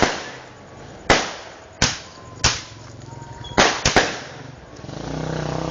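Fireworks exploding: about six sharp, irregularly spaced bangs, each trailing off in an echo. Near the end a low engine hum, like a motorcycle, comes in.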